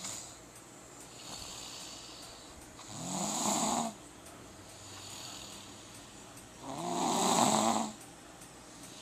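Snoring: two snores about four seconds apart, each lasting about a second, with quieter breathing between them.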